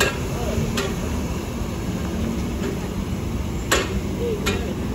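Heavy tanker truck's diesel engine running at low speed as it crawls close by, a steady low rumble, with several sharp knocks, the loudest about three and a half seconds in.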